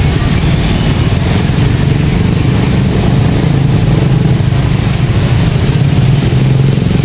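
Street traffic, mostly small motorcycle engines running and passing, with a steady engine hum that wavers in pitch and grows louder near the end.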